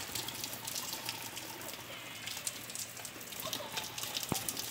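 Steady rain falling, with many small ticks of individual drops and one sharper click about four seconds in.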